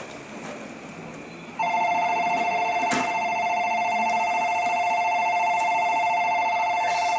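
Electronic platform departure bell ringing, a rapidly warbling two-note ring that starts about a second and a half in and then holds steady. A single sharp knock sounds about three seconds in.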